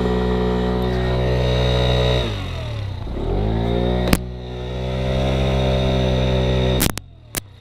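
Scooter engine held at high revs during a burnout, the rear wheel spinning in place and digging into loose ground. The revs dip about two seconds in and climb back, then the sound cuts off suddenly near the end, with a couple of clicks.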